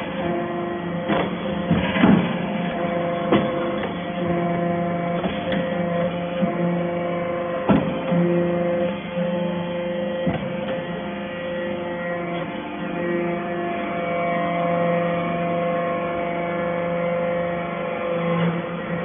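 Hydraulic metal-shavings baler running: a steady hum from its hydraulic power unit, with a few sharp knocks in the first eight seconds.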